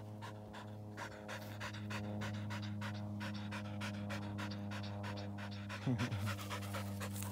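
Wirehaired pointing griffon panting fast through an open mouth, about four pants a second. A steady low hum runs underneath.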